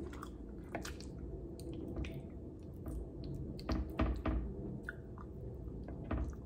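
Metal fork digging into and scooping soft shell mac and cheese, with wet squishing and scattered short clicks of the fork, a few stronger ones about four seconds in.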